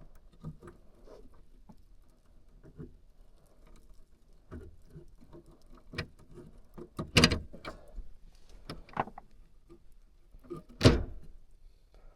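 Scattered light clicks, knocks and rustling of hands and tools handling furnace wiring, with two louder sharp knocks about seven and eleven seconds in.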